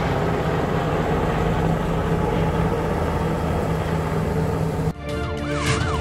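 Sikorsky S-92 helicopter flying close by: a steady rotor and turbine noise with a low hum. Near the end it cuts off abruptly to a fast, rapidly repeating yelping siren.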